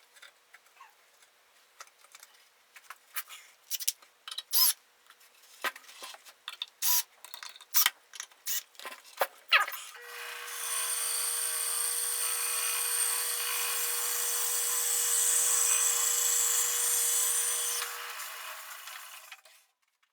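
Scattered knocks and clicks of wood being handled, then a bandsaw cutting through a piece of firewood for about eight seconds, starting about ten seconds in, flattening one face of the log on a sawmill sled.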